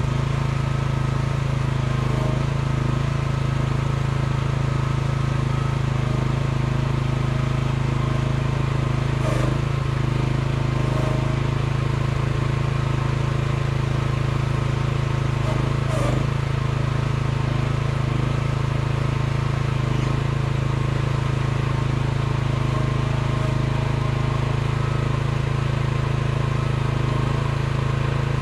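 Micro excavator's small engine running steadily while the boom, arm and bucket are worked. A couple of short knocks come about nine and sixteen seconds in.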